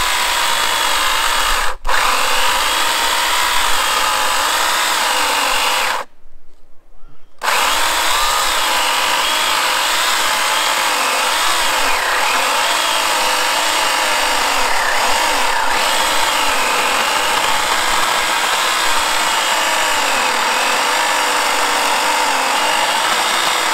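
Harbor Freight 14-inch cordless electric chainsaw cutting into a large log: a steady motor whine with the chain rasping through wood, its pitch rising and falling as the chain bites. It cuts out for an instant about two seconds in and stops for over a second around six seconds in, then runs on through the cut.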